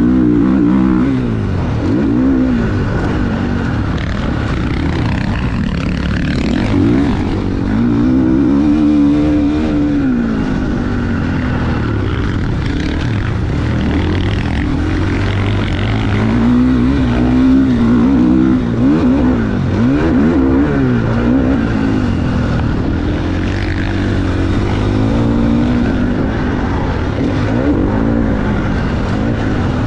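GasGas MC 450F dirt bike's single-cylinder four-stroke engine being ridden on a motocross track, revving up and falling off again and again through shifts and corners.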